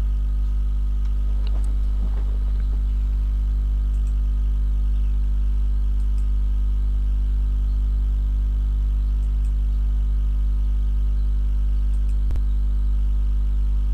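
Steady low electrical hum with a buzzy edge, unchanging in pitch and level.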